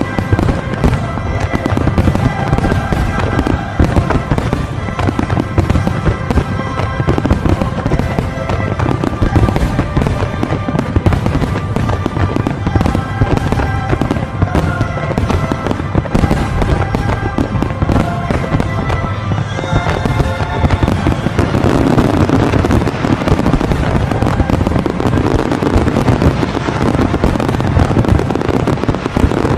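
Fireworks finale: aerial shells booming and crackling in rapid succession over music. About 20 seconds in the music drops away and the bursts thicken into a dense, continuous barrage of booms and crackling.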